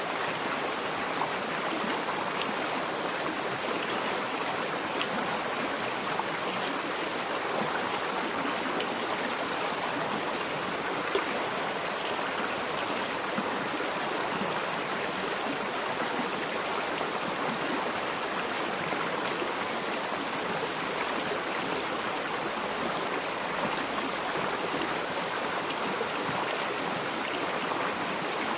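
A forest river flowing over stones: a steady rush of water with small splashes and gurgles.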